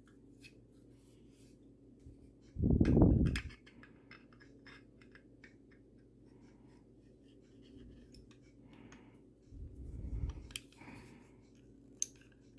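Small metal pistol parts being handled and fitted during reassembly: scattered light clicks and scrapes, with a dull low thump about three seconds in and a softer one near ten seconds, and a sharp click near the end.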